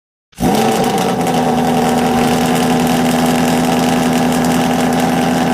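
A Ford Mustang's 289 small-block V8 idling steadily, cutting in abruptly about a third of a second in.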